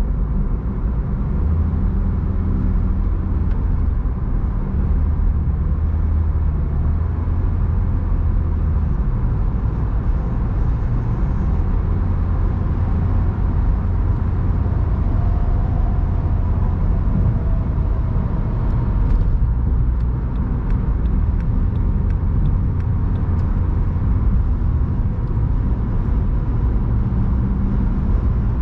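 A car driving along, with a steady low rumble of engine and road noise. A short run of faint, evenly spaced ticks comes about two-thirds of the way in.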